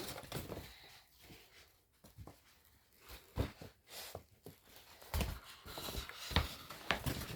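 Scattered light knocks and rustles from showbag items being handled, with a near-quiet stretch in the middle and a few louder knocks about five seconds in and near the end.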